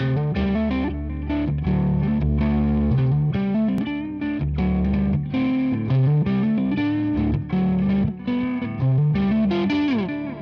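Electric guitar playing a run of melodic notes through effects, with some distortion.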